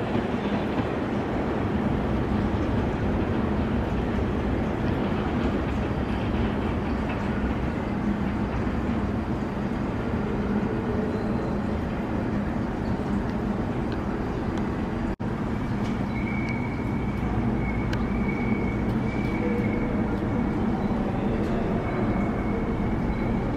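R188 subway train running on the track: a steady rumble of wheels and motors. A faint high squeal comes and goes in the second half, and the sound cuts out for an instant about fifteen seconds in.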